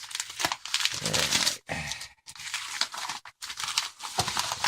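Packaging being handled and crinkled, a scratchy rustling that comes in uneven bursts with short pauses.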